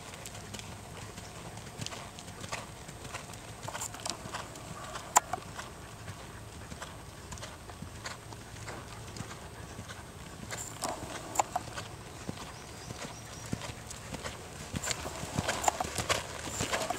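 Hoofbeats of a ridden horse on sand arena footing: soft irregular thuds and clicks, with one sharper click about five seconds in and the beats growing louder and busier near the end.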